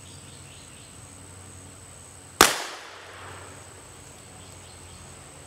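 A single shot from a black-powder cap-and-ball percussion revolver loaded with fine birdshot, about two and a half seconds in, its report dying away over about half a second.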